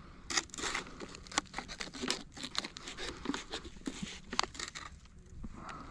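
Crinkling and rustling, a dense run of irregular crackles that dies away after about four and a half seconds.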